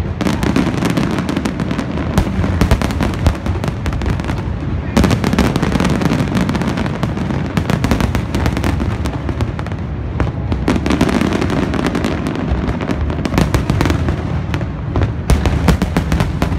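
Aerial fireworks display: a continuous barrage of shell bursts, with many sharp bangs and crackles over a steady deep rumble, and fresh clusters of explosions about five and eleven seconds in.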